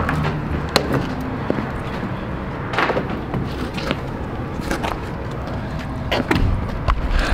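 Scattered knocks and scuffs of footsteps and handling at an enclosed trailer's door, over a steady low rumble.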